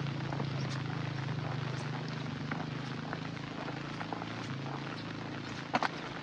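Rain falling, with many scattered drip taps and two sharper taps near the end, over a steady low engine hum that slowly fades.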